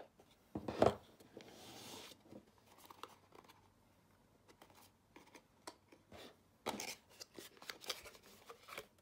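Cardboard gift-box packaging being handled: a single knock about a second in, a short scrape, then a run of rustling and clicking near the end as the cardboard inner tray is lifted out.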